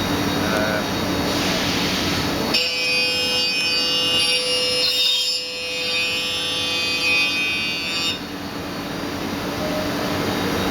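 Mikron HSM 600 U 5-axis high-speed milling machine running with a steady mechanical noise. From about two and a half seconds in until about eight seconds in, a high, steady whine of several tones rides over it, then stops.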